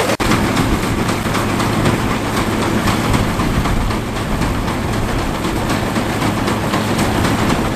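A Fordson tractor engine runs steadily while the pickup baler it tows works, adding a fast, even mechanical clatter.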